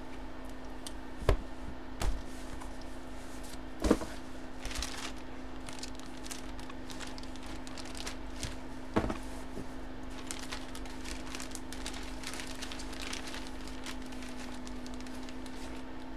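Boxes and a bagged jersey being handled on a table: a few sharp knocks and thumps, with plastic crinkling and rustling between them, over a steady hum.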